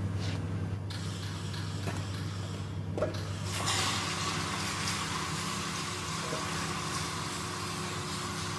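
A steady low machine hum, then a short knock about three seconds in. Half a second later a loud, even hiss sets in and holds.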